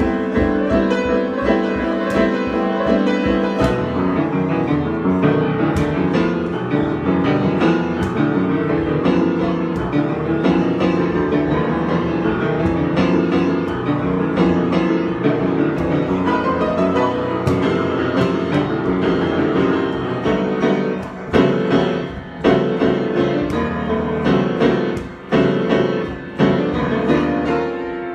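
Solo piano improvisation, played densely and continuously, breaking into separate struck chords with short gaps in the last several seconds.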